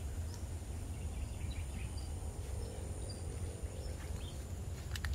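Outdoor ambience: a low steady rumble, with a faint, thin, high insect drone and a few faint, scattered short chirps.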